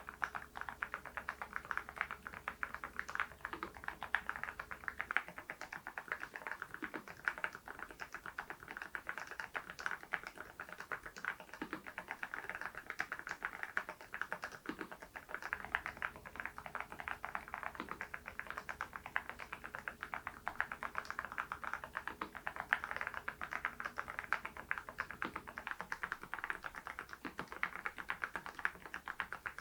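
RK R99 mechanical keyboard fitted with HMX V0-SS switches being typed on continuously: a dense, steady stream of keystroke clacks.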